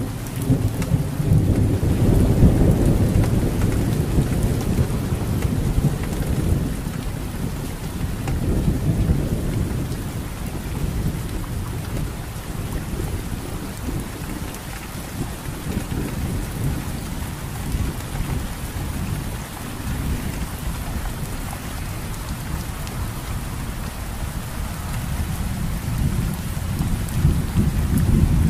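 Steady rain, with a deep low rumble underneath that is strongest over the first several seconds and swells again near the end.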